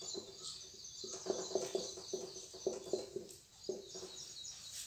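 Dry-erase marker squeaking and scratching on a whiteboard as words are written: a run of short strokes starting about a second in.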